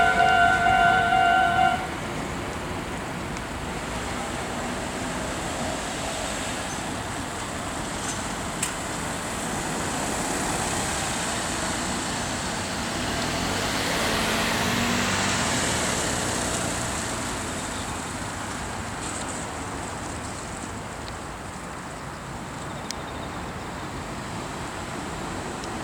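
Level-crossing warning bell ringing its steady electronic tones for the first couple of seconds, then cutting off. After it comes steady road and background noise, with a vehicle passing that swells and fades around the middle.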